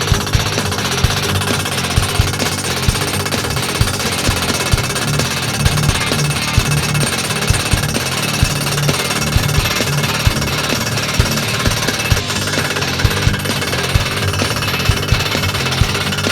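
Eterra PD-550 gas-charged skid steer post driver, which uses a concrete-breaker power cell, hammering a post with rapid, steady, jackhammer-like blows.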